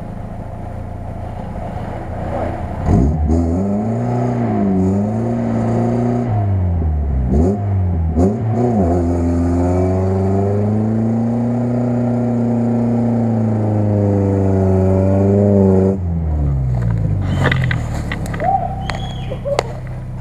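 Lada Niva engine revving hard while the car pushes through deep mud. The revs rise and fall over and over, are then held high for several seconds, and drop off about sixteen seconds in.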